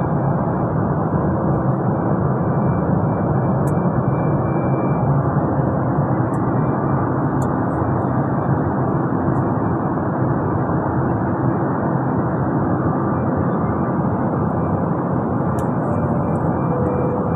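Steady cabin noise of a jet airliner in flight, the engines and the rush of air along the fuselage heard from a passenger seat, even and unchanging throughout.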